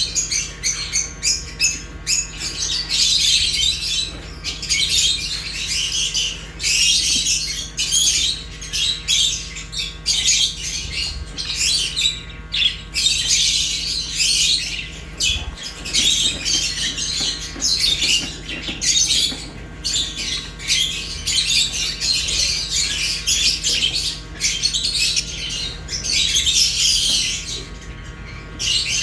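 A flock of caged budgerigars and lovebirds chirping and squawking, a dense overlapping chatter of high calls with only brief pauses.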